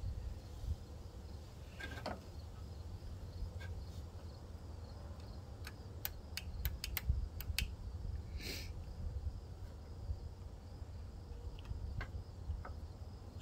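Small scattered clicks and taps of hands handling the carburetor and governor linkage on a lawnmower engine that is not running, with a short rustle a little past the middle. Underneath sit a steady low rumble and a faint high insect chirring.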